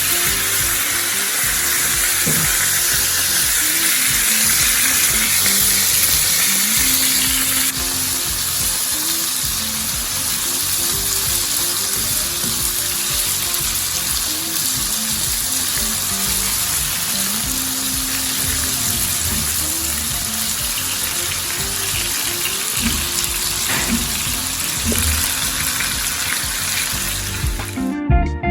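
Sweet potato pieces frying in hot vegetable oil: a steady, dense sizzle that cuts off suddenly just before the end.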